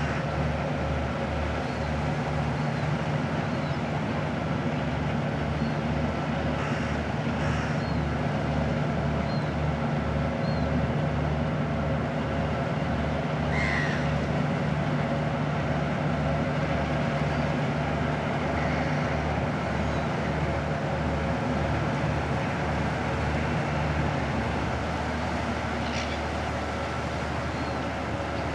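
A harbour tug's diesel engine running at low speed as the boat manoeuvres, a steady low throb pulsing about twice a second. About 24 s in, the pulse gives way to a smoother hum. Faint bird chirps come and go early on.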